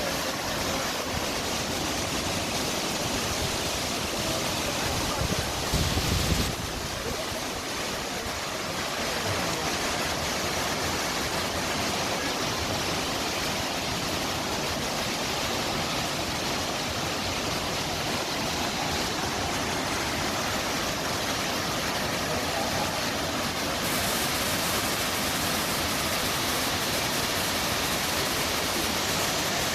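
Ouzoud waterfall's falling water rushing steadily. There is a brief low bump about six seconds in, and the rush turns hissier about two-thirds of the way through.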